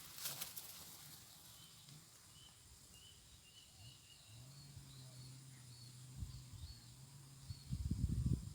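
Quiet rural outdoor ambience with a series of faint, short, high chirps. A low steady hum runs for a few seconds in the middle, and loud low rumbling noise on the microphone starts near the end.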